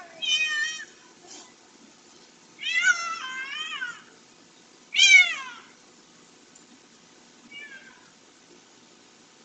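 Feral stray cat stuck on a fence by its leg, meowing in distress as it is handled and pulled free: several high, wavering cries, one long one about three seconds in, the loudest falling in pitch about five seconds in, and a faint last cry near the end.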